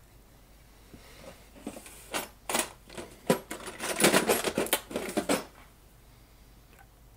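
Small metal hand tools clattering on a workbench as they are picked through and picked up: a run of sharp clicks and clinks starting about a second and a half in, thickest around four seconds, and stopping about five and a half seconds in.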